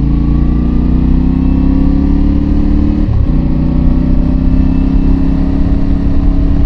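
Motorcycle engine accelerating hard, its pitch rising for about three seconds, dropping with an upshift, then pulling steadily again, with wind rumble on the microphone.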